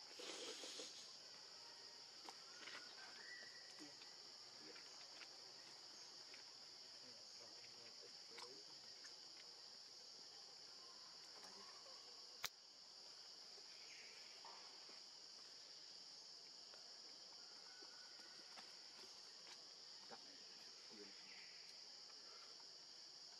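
Faint, steady high-pitched insect drone, with a brief burst of noise right at the start and a single sharp click about halfway through.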